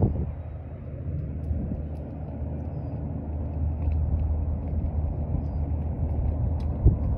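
Steady low rumble of a slowly moving vehicle: road and wind noise, with one short thump near the end.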